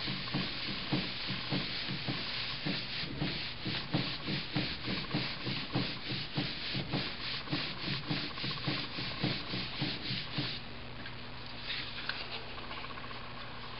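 Palms rubbing a sheet of paper pressed onto an inked printing plate, in quick, even back-and-forth strokes that transfer the leftover ink for a ghost print. The rubbing stops about ten seconds in.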